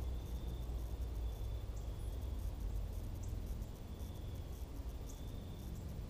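Insects chirping in short, level, high-pitched trills that stop and start every second or so, over a steady low rumble.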